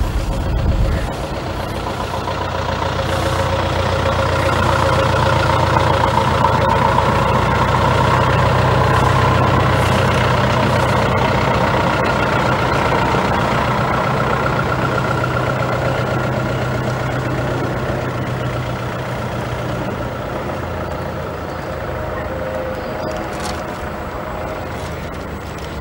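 A motor vehicle's engine running steadily with a low hum. It grows louder over the first several seconds and eases off in the last few.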